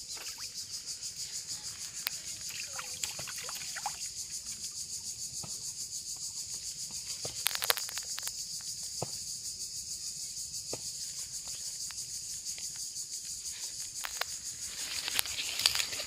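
Steady high-pitched insect chorus pulsing rapidly, with a couple of brief louder noises about halfway and near the end.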